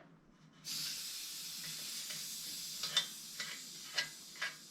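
Pressurized air hissing out of the fuel tank of a 1969 Coleman 220F gas lantern as the pressure is let off; the hiss starts suddenly about half a second in and slowly fades. A few light clicks sound in its second half.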